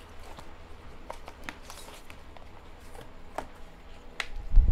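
Light clicks and rustles of a cardboard and paper watch-band insert as gloved hands slide a rubber sport band out of it. A loud low rumble sets in suddenly near the end.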